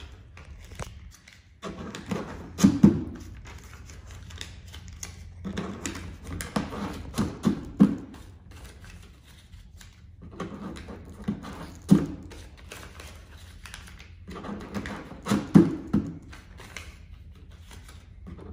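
Paper banknotes being handled and unfolded by hand: irregular bursts of rustling and crinkling with short sharp clicks, separated by quieter pauses.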